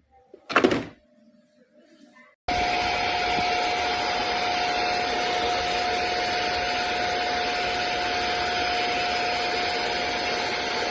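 A knock, then a handheld vacuum cleaner switched on about two and a half seconds in, its motor running steadily with an even rushing noise and a constant whine.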